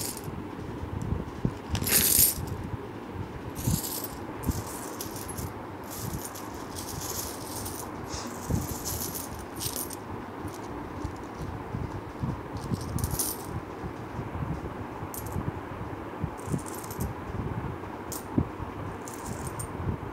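Indian rupee coins clinking and jingling against each other as a hand sifts and spreads a pile of them. The clinks come in irregular bursts, the loudest about two seconds in.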